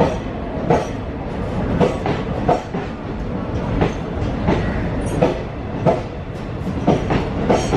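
Passenger train rolling past, its wheels clacking over rail joints about once a second over a steady rumble.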